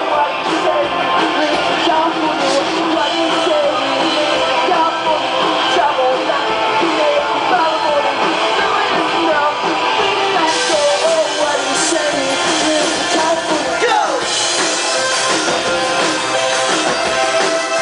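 A pop-rock band playing live: electric guitar, synthesizer keyboard and drums in a loud, continuous full-band passage, with one falling pitch slide late on.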